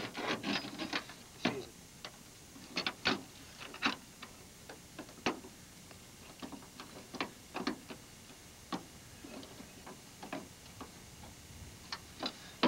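A steel body-grip trap being handled and reset: irregular sharp metallic clicks and clacks as its jaws, springs and trigger are worked.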